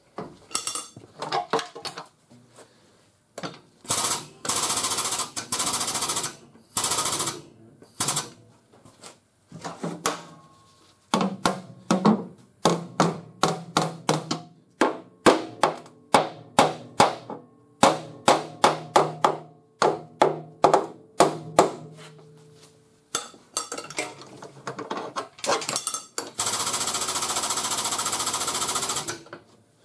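Body hammer tapping a dented steel fender in fast runs of strikes, about four a second, while the panel is held under a chain pull; the metal rings faintly after the blows. A few stretches of steady noise lasting a second or so come in between, the longest about three seconds near the end.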